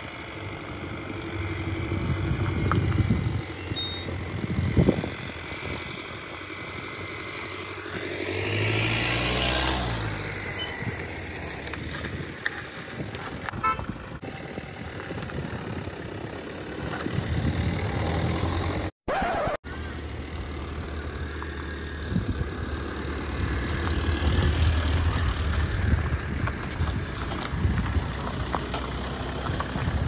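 Toyota Fortuner SUV and Skoda Octavia 1.9 TDI sedan driving slowly on a rough road, their diesel engines running at low speed, with a swell of vehicle noise about eight to ten seconds in.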